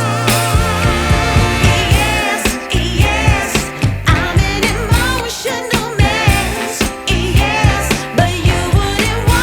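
Background music: a song with a vocalist singing over a steady beat.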